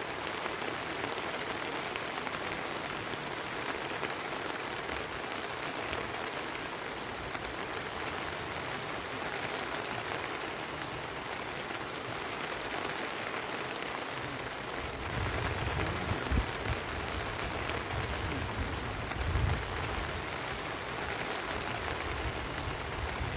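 Steady rain falling, an even hiss. About fifteen seconds in a low rumble joins it, with a couple of brief louder knocks.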